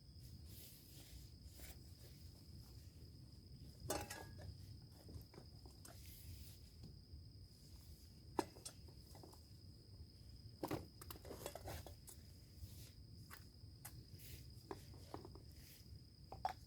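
Irregular footsteps crackling on a pine forest floor, with a steady high-pitched insect trill running underneath.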